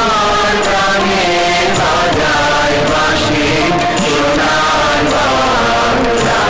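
A national anthem playing: voices singing together in held notes over instrumental accompaniment.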